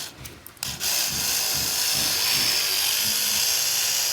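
Black & Decker cordless li-ion mini screwdriver triggered briefly, then its motor running steadily from just under a second in.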